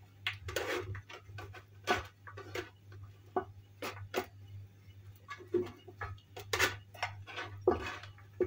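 Irregular clicks, taps and light knocks of a baking dish and other kitchenware being moved and set down, over a low steady hum.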